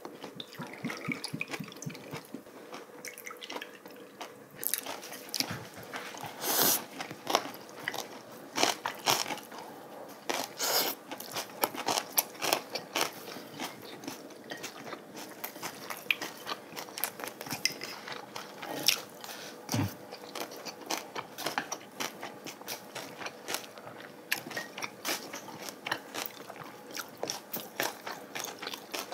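Close-up eating sounds of two people chewing and biting, with irregular clicks of chopsticks against plates and bowls.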